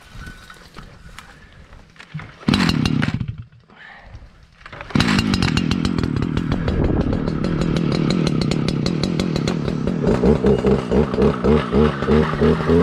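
Stihl two-stroke clearing saw being pull-started: a short burst of engine sound about two and a half seconds in that dies away, then the engine catches about five seconds in and keeps running. Near the end its sound pulses about twice a second.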